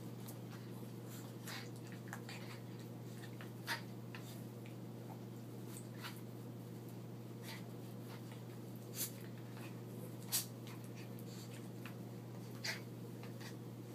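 Small dogs play-wrestling: quiet scuffling with four short, sharp noises spread through, over a steady low hum.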